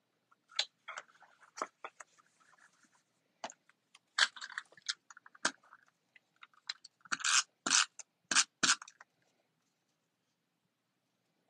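A tape runner laying adhesive strips on paper in short scraping strokes, with paper and cardstock being handled; the loudest are four strokes close together past the middle.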